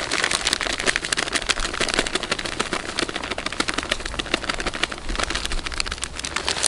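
A plastic packet crinkling and crackling in the hands, with many quick crackles, as it is shaken out over a bait-mixing jar.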